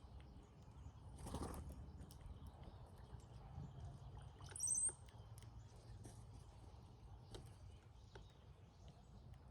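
Brown-headed cowbird giving a short, high, thin whistle with a glide, about four and a half seconds in, among faint scattered chirps. A brief rush of noise comes about a second in.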